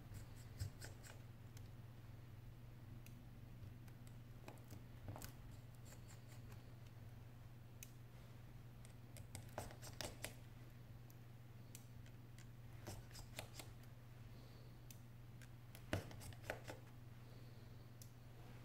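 Faint scattered clicks and light taps of a precision screwdriver and small metal phone parts being handled on an iPhone 6s display assembly and a parts tray, over a low steady hum. The sharpest click comes about two thirds of the way through.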